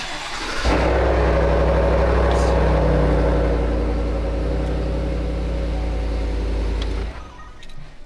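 A GMC Sierra pickup's engine started with the push-button ignition: a brief crank, then it catches and runs at a fast idle that eases down a little, and is switched off suddenly about seven seconds in.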